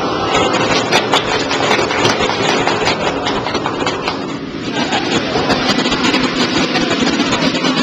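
Commercial wok range and kitchen extractor running with a loud, steady noise. Sharp metal clinks of a ladle scraping the wok and serving dish come in the first few seconds.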